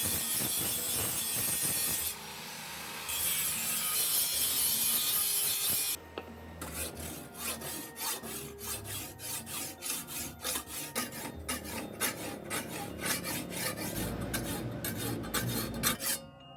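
A steel sickle blade being worked by hand with a file. First there is a steady harsh rasping for about six seconds, broken briefly about two seconds in. It then gives way to rapid back-and-forth file strokes, about three or four a second.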